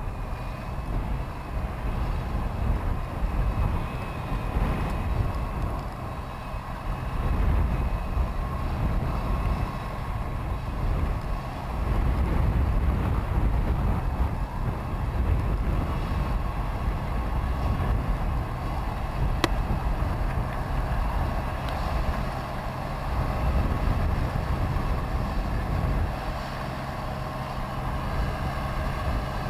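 New Holland T7.260 tractor's diesel engine running under load while ploughing: a steady whine over a low rumble that swells and eases every few seconds.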